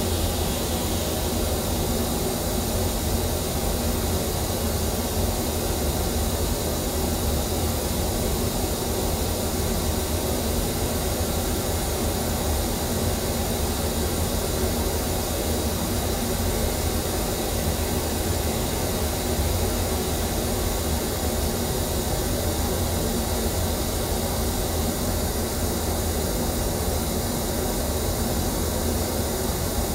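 Steady pink noise played through a PA sound system for room EQ, a constant hiss across the whole range. A dip around 2 to 3 kHz deepens near the end as those graphic EQ bands are pulled down toward a target curve that dips at 3 kHz.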